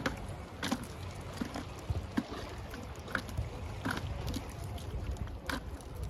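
Fish being picked out of a nylon cast net on a pebble beach: scattered clicks and light taps of pebbles shifting and fish dropping, over a low steady rumble.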